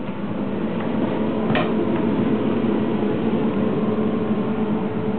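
Steady hum of a double-decker push-pull train's onboard ventilation and equipment, heard from inside a small compartment of the car: a low hum with a higher steady tone over it. A single knock about one and a half seconds in.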